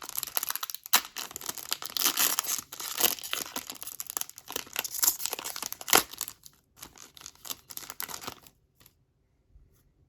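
A hockey trading-card pack wrapper being torn open and crinkled in the hands: a run of ripping and crackling strokes that stops about eight and a half seconds in.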